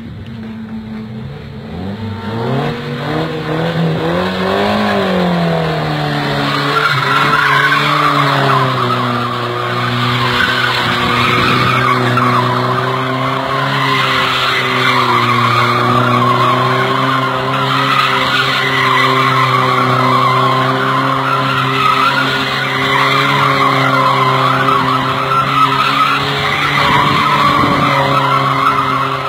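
Old Toyota sedan doing donuts: its engine revs climb and dip over the first few seconds, then hold steady and high while the spinning tyres squeal and skid on the dusty ground.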